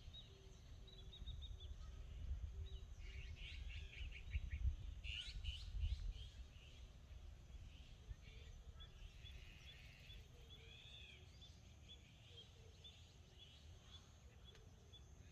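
Several wild birds chirping and calling, in short chirps and quick rattling series, over a low rumble that is heaviest in the first few seconds.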